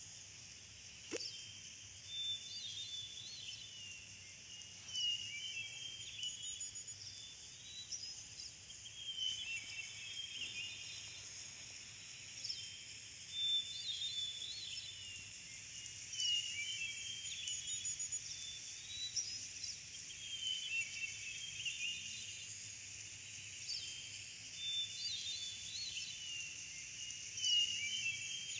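Looped birdsong ambience: many small birds chirping and twittering over a faint steady background. The same stretch of birdsong repeats about every eleven seconds.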